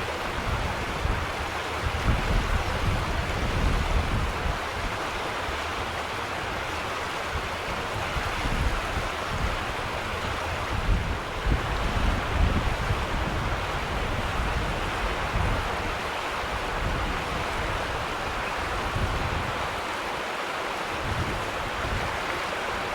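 Strong wind rushing, with gusts buffeting the microphone in irregular low rumbles.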